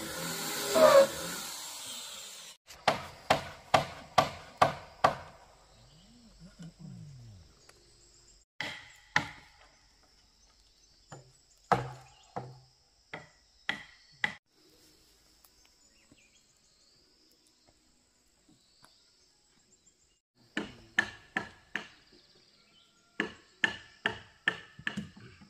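Repeated blows of a tool striking wood, in runs of several strokes about two a second with pauses between. A faint steady high insect drone runs underneath.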